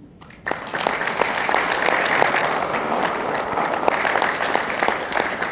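Audience applauding, starting suddenly about half a second in.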